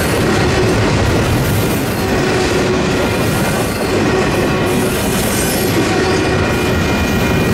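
Double-stack container well cars of a freight train rolling past close by: a loud, steady rumble and clatter of steel wheels on the rails. A steady high ringing runs over it.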